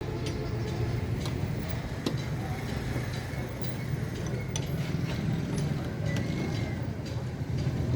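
Metal clinks and clicks of tools and parts being handled, scattered irregularly over a steady low mechanical hum.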